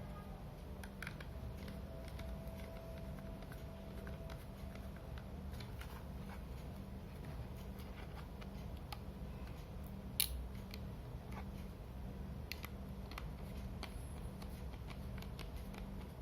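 Small clicks and taps of laptop parts being handled while an SSD is fitted, with one sharper click about ten seconds in, over a steady low hum.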